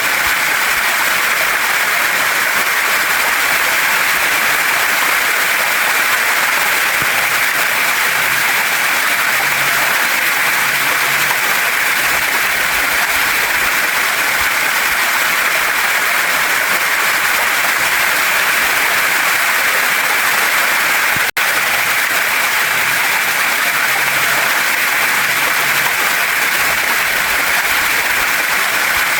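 Steady, dense rush of water cascading over rocks in a waterfall and mountain stream. The sound breaks off for a split second about 21 seconds in.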